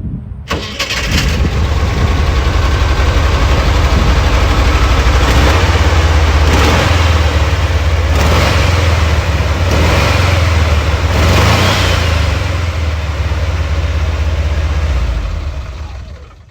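Volkswagen Kombi T1.5's air-cooled flat-four engine catching about half a second in and running with a steady low throb, swelling briefly about five times as it is blipped, then fading out near the end.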